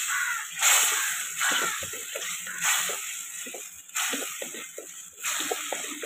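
Wooden spatula scraping and stirring thick, wet onion-tomato masala in a clay pot, with a swishing stroke about once a second over a steady sizzle. The masala is frying down as its added water cooks off.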